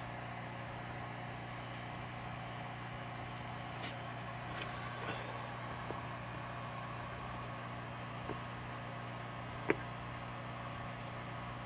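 A steady low machine hum, with a few faint clicks and one sharp tick near the end.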